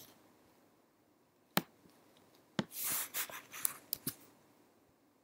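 Scattered clicks of a computer keyboard and mouse: one sharp click about a second and a half in, then a cluster of clicks with a short hiss among them around the middle.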